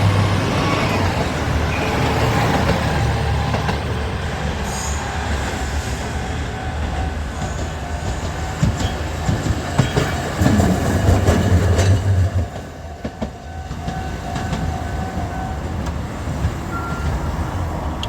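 Rail vehicles passing at close range: a low rumble with a run of sharp clacks from the wheels over rail joints about eight to twelve seconds in.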